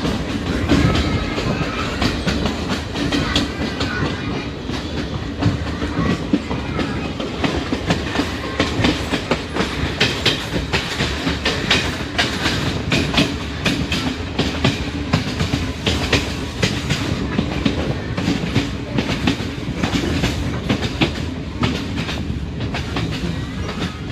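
Passenger train running along the track, heard from on board: a steady low rumble with wheels clattering and knocking irregularly over the rails.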